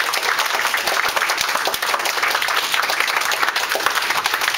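A small audience applauding, many hands clapping at once in a dense, steady patter.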